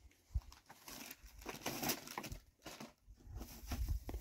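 Packaging crinkling and rustling in irregular handfuls as a packet is unwrapped by hand, with a soft thump about half a second in.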